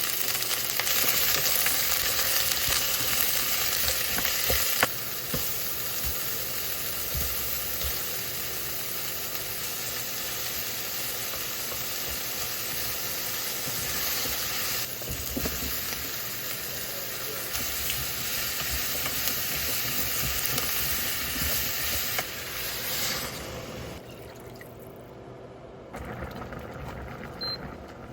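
Food sizzling in a frying pan as it is stir-fried: a steady hiss that changes abruptly a few times and turns quieter near the end.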